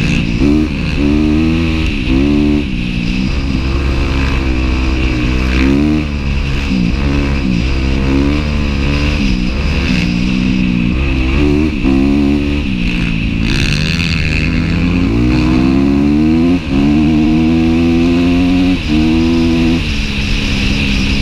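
Dirt bike engine revving up and dropping back over and over as the rider accelerates, shifts and rolls off, with one longer pull about two-thirds of the way through.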